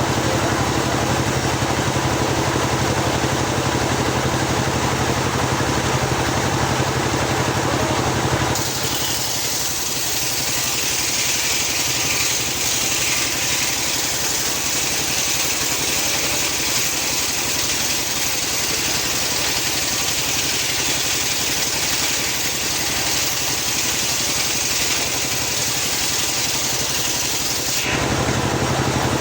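Homemade circular sawmill running steadily, then cutting into a teak log about 8 seconds in. The cut goes on for nearly 20 seconds as a brighter, hissing sound, and the saw runs free again near the end.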